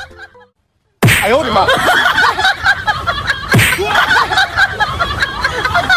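After about a second of silence, a basketball game plays on a television: arena crowd noise and voices. Sharp smacks come about a second in, about three and a half seconds in, and at the end.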